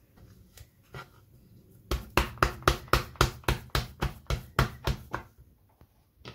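A quick run of about a dozen sharp knocks, roughly four a second, starting about two seconds in and stopping about three seconds later, with a single fainter knock before and after.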